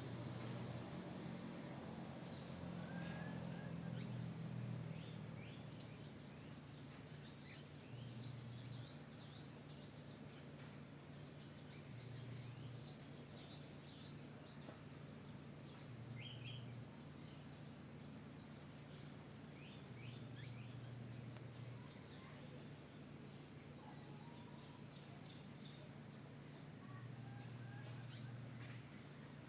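Faint birds chirping and twittering in many short, quick high calls, busiest in the first half, over a low steady hum.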